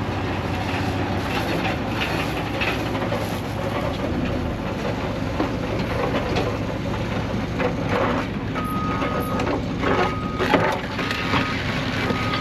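Heavy diesel machinery running steadily, with knocks and scraping throughout. About two-thirds of the way in, a reversing alarm starts beeping about once a second.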